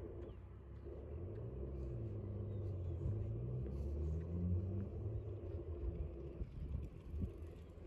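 A car driving past: engine and tyre rumble building to a peak about halfway through, then fading.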